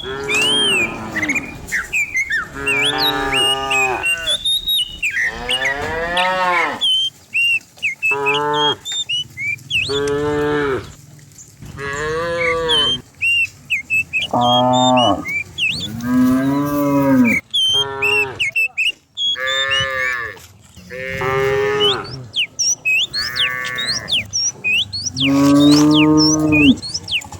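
Cattle mooing over and over from several cows, about a dozen long calls that rise and fall in pitch, one after another and sometimes overlapping.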